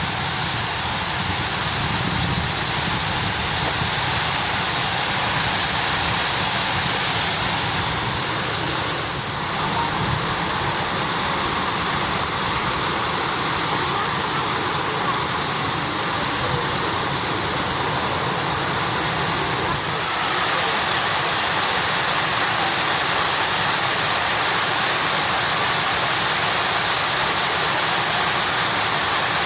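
Steady rushing and splashing of Shiraito Falls, groundwater spilling down a rock face in many thin streams.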